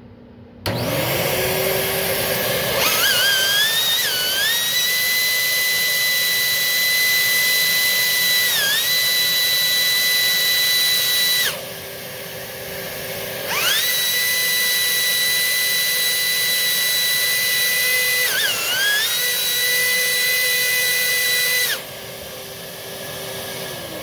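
A Beam 2900 240-volt dual-motor central vacuum unit is switched on, its motors spinning up to a steady high whine. The spinning vane of a handheld digital anemometer held in its airflow screams at one shrill, steady pitch, wavering briefly. The whistle stops for about two seconds when the vane is lifted away, then returns. Near the end the whistle cuts off and the vacuum motors begin to wind down.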